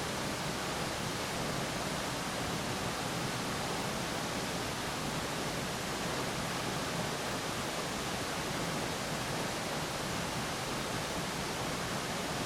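Waterfall running full after rain: a steady, continuous rush of falling water.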